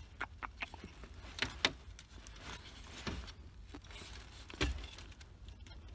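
Scattered light clicks, taps and key jingling as the ignition lock cylinder, its key ring and the plastic ignition-switch parts are handled, with a few sharper clicks about a second and a half in and again near the end.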